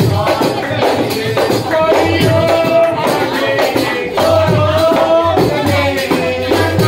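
A woman singing to a dholak drum beating a steady rhythm, with a tambourine jingling along; she holds long notes in the middle of the stretch.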